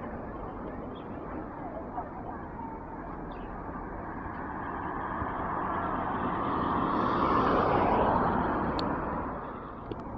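Steady outdoor background noise, over which a passing vehicle swells up, loudest about eight seconds in, then fades away.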